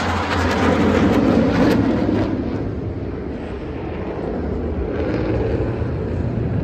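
Fighter jets flying a display pass overhead: a loud jet engine rumble that eases off after about two seconds and swells slightly again near the end.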